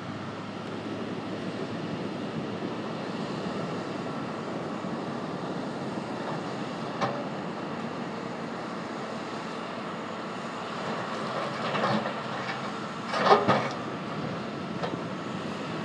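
Tracked excavator working riprap boulders: its engine and hydraulics running steadily, with a louder clatter of rock and steel about thirteen seconds in.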